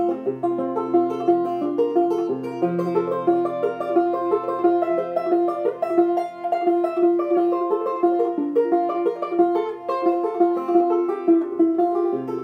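Five-string banjo picked two-finger style in the key of F, tuned fCFAC: a quick run of plucked melody notes over a recurring high drone note, with the bass notes shifting every second or two.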